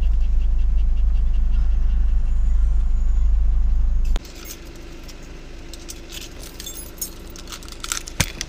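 Steady low rumble inside a car, cut off abruptly about four seconds in. What follows is quieter, with light scattered clicks and rattles that come more often near the end.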